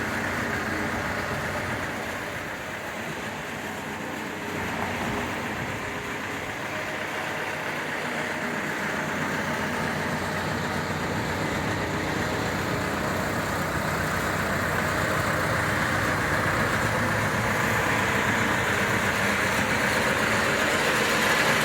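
Terex 860 backhoe loader's diesel engine idling steadily, growing gradually louder through the second half.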